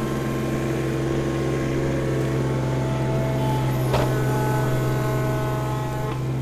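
Case CX17C mini-excavator's diesel engine running steadily while the boom and bucket dig, with a higher steady whine that changes pitch about three and a half seconds in and drops away near the end. A single sharp knock about four seconds in.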